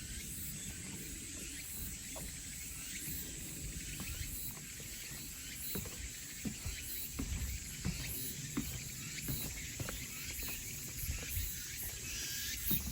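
Chorus of crickets and cicadas: a steady high-pitched trill that runs on without a break, with scattered faint ticks and a low rumble underneath.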